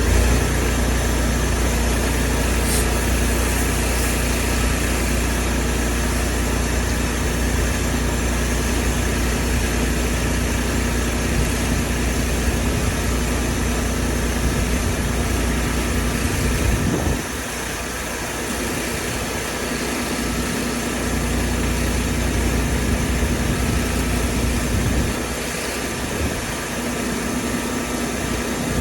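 An engine running steadily with a constant hum. The deep part of the sound drops away briefly twice, about two-thirds of the way through and again near the end.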